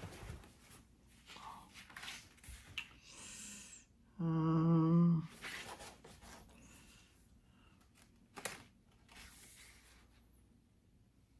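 Paperback book being handled and its pages turned: soft paper rustles, slides and light taps. Just after the middle a person hums a single steady "mm" for about a second, the loudest sound, and a sharper click comes a few seconds later.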